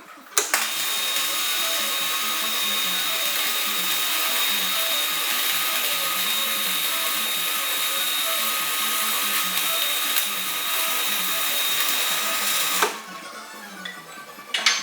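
A power tool running steadily on metal for about twelve seconds with a dense, even hiss and a faint steady whine, starting about half a second in and cutting off abruptly near the end, with background music underneath.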